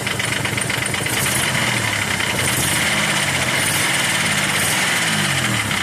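Nissan VG30E 3.0-litre V6 running with an unsteady idle, its note wavering, and a rapid ticking from the engine. The owner suspects the hydraulic lifters or the rocker arms behind the tick, and a clogged injector behind the rough running.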